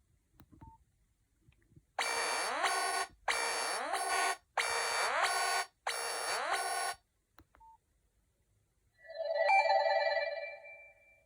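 Nokia 5130 XpressMusic mobile phone playing preloaded ringtones through its speaker: one ringtone sounds in four bursts of about a second each, then after a short beep a different ringtone starts near the end.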